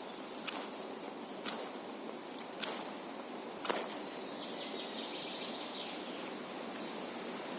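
Victorinox Farmer pocketknife's large blade making four sharp cutting strokes, about one a second, then stopping.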